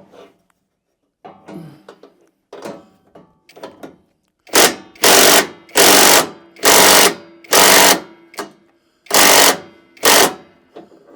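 Handheld power tool, such as a drill/driver, run in about seven short, loud bursts of about half a second each, starting about four and a half seconds in. Quieter handling clatter comes before the bursts.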